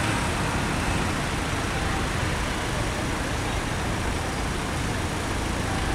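Steady traffic noise from a queue of stopped cars, their engines idling, as a low, even rumble and hiss with no distinct events.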